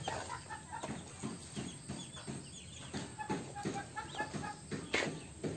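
Chickens clucking: a steady run of short, repeated calls, several a second.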